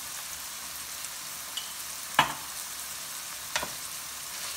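Mushrooms and onions sizzling in oil in an enameled cast-iron skillet, a steady hiss. Two sharp knocks cut through it, about two seconds in and again a second and a half later.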